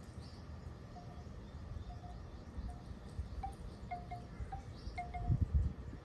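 Wind buffeting the microphone as a low rumble, with a stronger gust near the end, while a string of short, clear pitched notes repeats at mid pitch every half second to a second.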